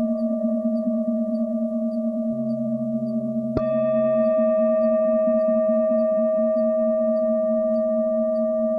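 Tibetan singing bowls ringing in long overlapping tones, the lowest tone wavering. One bowl is struck about three and a half seconds in, adding a fresh ringing tone that lifts the sound.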